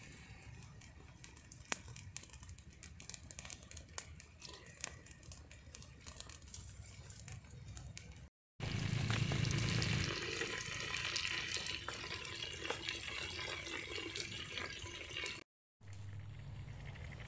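Open wood fire crackling under a clay pot, with scattered sharp pops. After a short break about eight seconds in, a louder, hissier stretch follows, broken off again by another short gap near the end.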